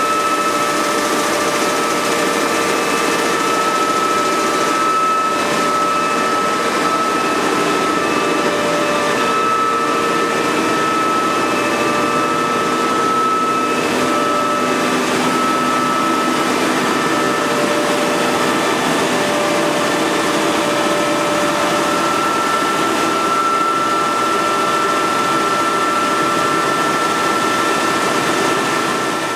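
Müller Martini Progress two-colour web offset press running steadily at speed, paper web feeding through: an even mechanical drone with a constant high whine over it.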